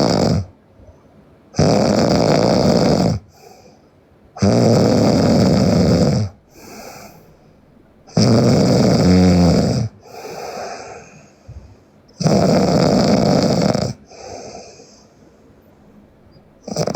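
A sleeping young woman snoring loudly. A loud, rough snore about a second and a half long comes roughly every four seconds, each followed by a much softer breath.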